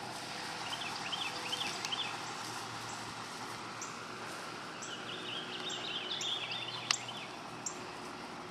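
Steady outdoor background noise with a small bird twittering in two bouts, about a second in and again from about five to seven seconds in. There is one sharp click near seven seconds.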